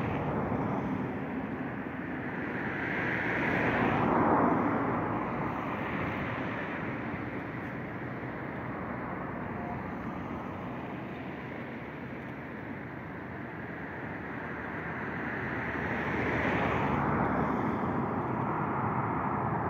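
Wind buffeting the microphone in gusts, swelling about four seconds in and again near the end. Beneath it is the distant rumble of a Boeing 737-800's CFM56 jet engines as the airliner approaches to land.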